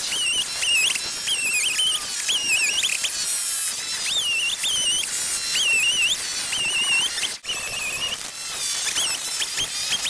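Chainsaw audio sped up many times over by the time-lapse, so each rev up and down of the saw comes out as a quick, high-pitched warbling chirp, one after another. The sound drops out briefly about seven seconds in.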